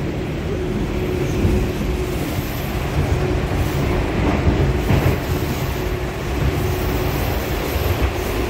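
Inside an 81-725.1 'Baltiets' metro car running at speed through the tunnel between stations: a loud, steady rumble of wheels on rail with a steady hum under it, and a single clack about five seconds in.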